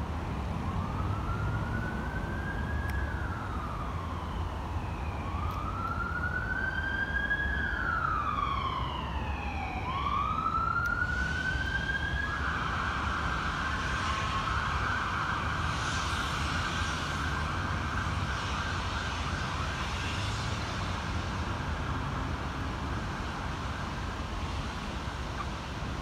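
Emergency vehicle siren: a slow wail rising and falling in pitch, switching about halfway through to a fast yelp that dies away near the end. A steady low rumble of wind on the microphone runs underneath.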